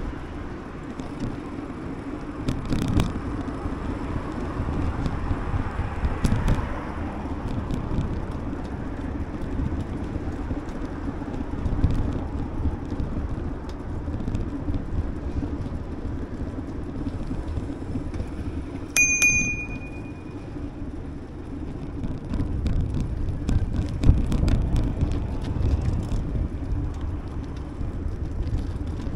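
Bicycle riding along paved city cycle lanes: steady tyre rumble with small rattles and clicks. About two-thirds of the way in, a single short bell ring sounds.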